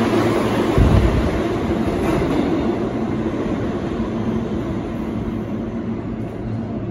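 NYC Subway R160A-2 train with Alstom propulsion pulling out of an underground station. Its rumbling wheel and running noise, with a steady low hum underneath, fades as it goes off into the tunnel. A low thump comes just under a second in.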